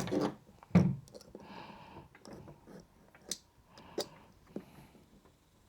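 Light, scattered clicks and taps of a fencing scoring reel's coiled spring and housing being handled, the sharpest about three and four seconds in.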